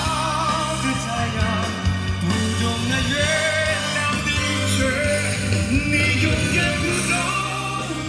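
A song with a singing voice, played loud through a karaoke room's BMB PF-12+ loudspeakers and PF-218B+ subwoofers, with a heavy, steady bass line.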